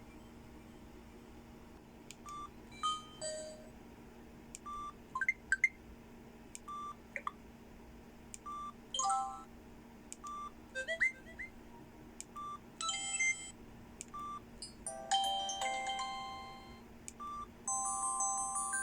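Samsung E530 mobile phone playing a polyphonic ringtone through its small speaker: a jingly melody of short electronic notes over a short note that repeats about once a second, with denser chords of notes near the end.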